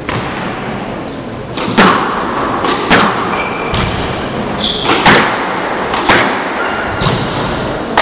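Squash rally: the hard rubber ball is struck with rackets and smacks off the court walls, sharp hits coming about once a second with smaller knocks between. Short high squeaks of court shoes on the wooden floor come twice in the middle.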